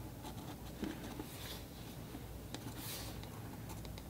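Faint pencil scratching on paper in a few short sketching strokes, with small ticks as the lead touches down.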